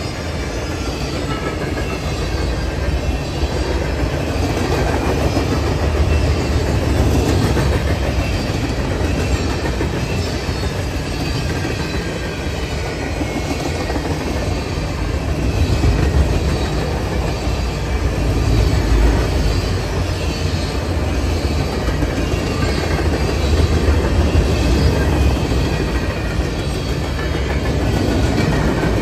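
Steel wheels of a long Norfolk Southern mixed freight train's cars rolling past at close range: a continuous low rumble with the clatter of wheels over the rails, swelling and easing slightly as cars go by.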